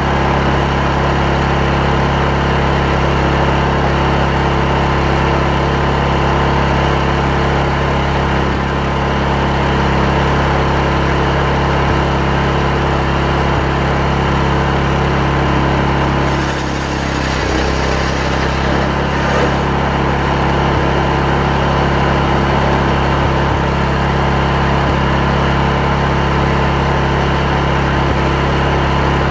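Chainsaw engine running steadily under load while ripping a log of hard yom wood lengthwise into boards. It holds one pitch, dipping briefly a little past the middle before settling back.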